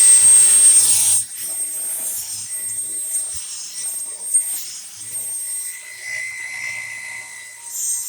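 Dyson V10 cordless stick vacuum running, a steady motor hum with a high whine on top. Loud for the first second, then it drops to a lower, steady level.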